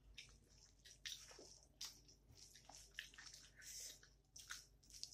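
Faint, wet eating sounds: a mouthful of rice with lentil dal and potato curry being chewed while fingers squish and mix more of it on the plate, a scattered run of short smacks and squelches.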